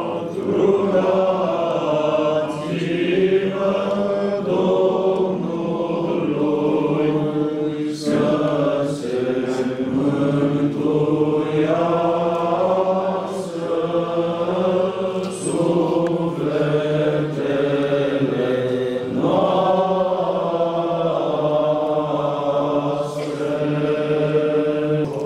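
Orthodox liturgical chant: several voices sing long, slowly moving melodic lines over a steady held drone. A few brief sharp taps sound faintly around the middle.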